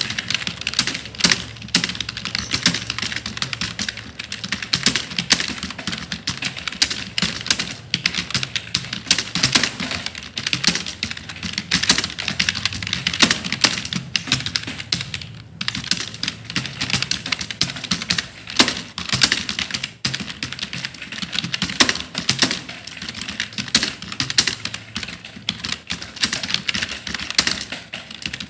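Continuous fast typing on a computer keyboard, a dense run of key clicks with a brief pause about halfway through.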